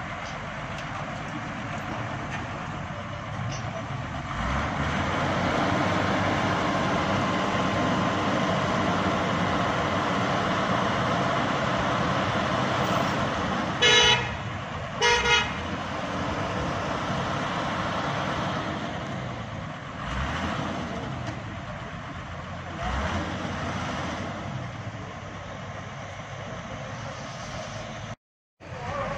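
Vehicle engines running steadily with road noise, broken about halfway through by two short vehicle horn honks about a second apart.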